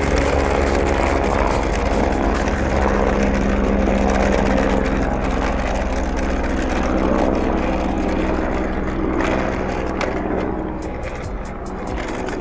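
Toy helicopter's small electric motor and rotors running with a steady whirring hum, easing off a little near the end.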